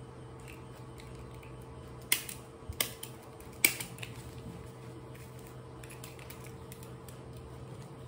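Three sharp metallic clicks from a small handheld stapler, about two to four seconds in, over a steady low hum.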